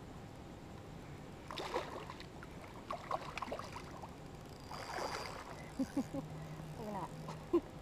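Water splashing and sloshing in three short bouts beside a float tube, with a few sharp clicks and knocks of handled fishing gear.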